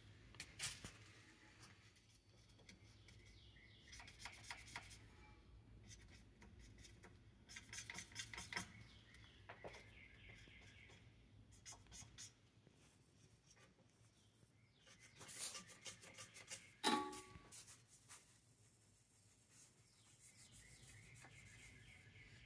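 Faint, scattered rubbing, scraping and clicking of black plastic drain pipe and fittings being handled and worked into place with gloved hands, with a few louder scrapes and knocks about 15 to 17 seconds in.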